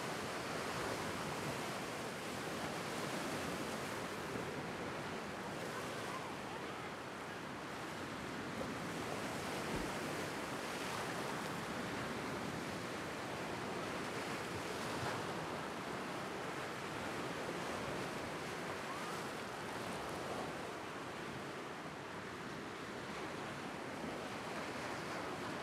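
Lake Superior waves washing and breaking against a rocky shore: a steady rush of surf that gently swells and eases.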